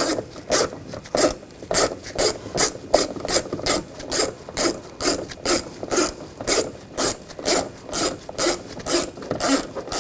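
Hand ratchet clicking in quick, even strokes, about three a second, as a door-panel screw is driven in and tightened.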